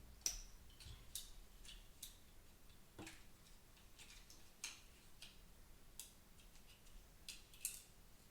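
Quiet room with scattered light, sharp ticks and clicks, irregularly one or two a second, from small tools and mouse parts being handled while a part is worked loose for desoldering.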